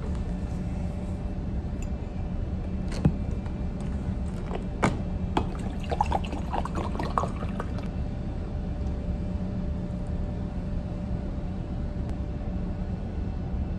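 Water poured from a plastic bottle into a ceramic mug around the middle, the pitch rising as the mug fills, after a couple of sharp knocks. A steady low hum of the ship runs underneath.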